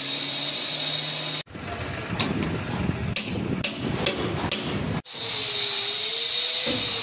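A power tool cutting a chase into a concrete-block wall runs with a steady high hiss and whine, then cuts off abruptly. Next comes hand chiselling of the groove: scraping with about five sharp hammer-on-chisel strikes. Near the end the power cutter runs again, its pitch wavering as it bites into the block.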